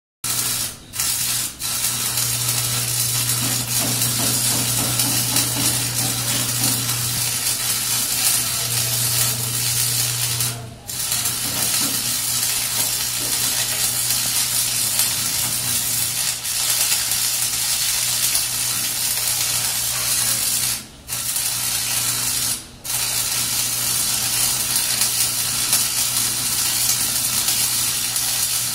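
Electric arc welding: the steady crackling, frying hiss of the arc, with a low hum underneath. It cuts out briefly about five times as the arc breaks and is struck again.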